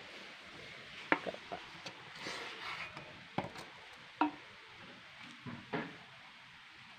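Cassava roots being handled: about half a dozen light knocks spread out, with some soft rustling in between.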